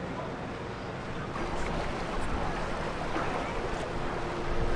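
Steady outdoor background noise, with a faint steady hum coming in about a second in and a few light ticks.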